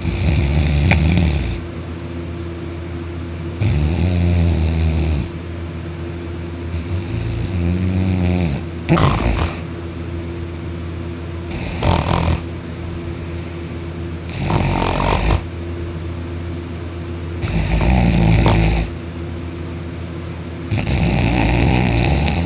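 Loud snoring from someone asleep on his back with his mouth open: about eight rasping snores, each a second or so long, about every three seconds, over a steady low hum.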